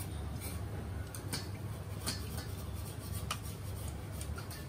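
Sharp, irregular clicks and scrapes of a chef's metal spatula on a steel teppanyaki griddle, about half a dozen strikes, over a steady low hum.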